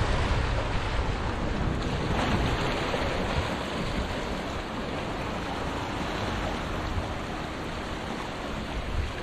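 Small sea waves washing against rocks along the shore, with wind rumbling on the microphone; a louder wash comes about two seconds in.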